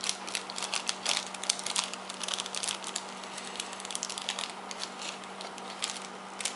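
Small clear plastic parts bag crinkling in the fingers as it is handled and opened, in quick irregular crackles that are loudest about a second or two in.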